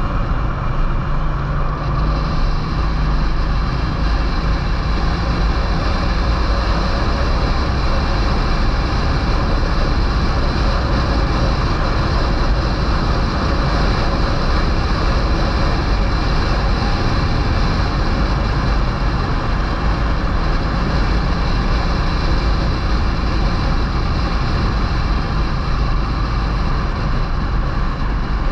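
Touring motorcycle riding at a steady road speed: a constant rush of wind on the microphone with the engine running underneath.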